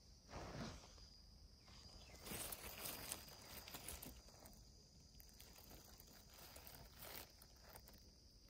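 Faint rustling of grass blades and dry leaves close to the microphone, in short bursts about half a second in, from about two to four seconds in, and again around seven seconds, over a faint steady high-pitched tone.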